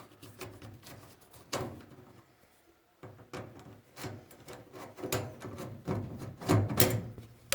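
Hand handling of parts at a clothes dryer's cord terminal block: scattered clicks, knocks and rubbing, with a short quiet pause early on and busier clicking and knocking in the second half.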